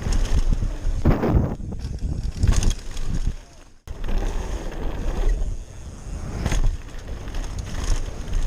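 Wind buffeting an action camera's microphone over the rumble and rattle of a mountain bike riding a dirt trail. The noise sinks a little over three seconds in and comes back abruptly just before four seconds.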